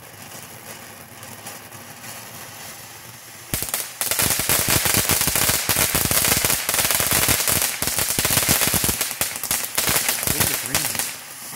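Feliz Fountain ground firework spraying with a quiet hiss. About three and a half seconds in it breaks into loud, dense crackling, a rapid rattle of many small pops that runs for about seven seconds and dies down near the end.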